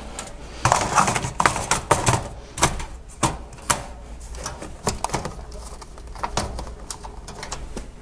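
Irregular clicks, knocks and rattles as a pleated air filter is handled into a wall return-air vent and the louvered grille cover is pushed shut. The knocks come thickest in the first half and thin out to scattered clicks later.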